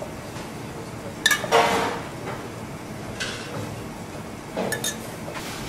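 Metal spoon clinking and scraping against a stainless-steel saucepan as food is scooped out: a sharp ringing clink about a second in followed by a short scrape, a softer scrape midway, and a couple more clinks near the end.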